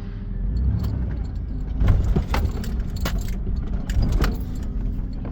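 Toyota Land Cruiser Prado driving over rough ground in four-wheel drive, heard inside the cabin: a steady low rumble with a run of sharp knocks and rattles about two to four seconds in as the vehicle jolts.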